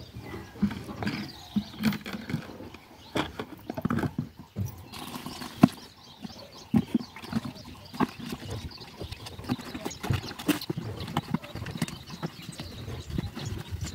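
Plastic buckets being set down and handled at a water tank's tap, with footsteps: a run of irregular knocks and clunks.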